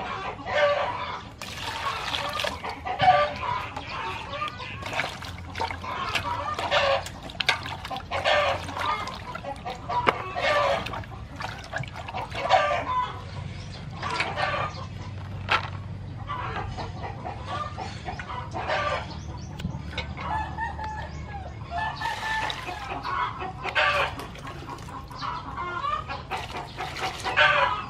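Chickens clucking and calling over and over, with occasional sharp clicks.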